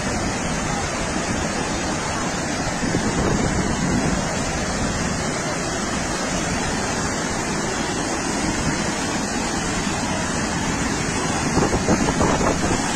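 Floodwater rushing down a swollen river in spate, a loud, steady wash of water noise that swells slightly a few times.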